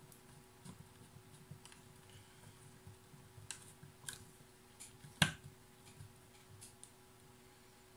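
Scattered small clicks and taps of hands working on a plastic portable radio-cassette speaker case as it is put back together, with one sharp, louder click about five seconds in, under a faint steady hum.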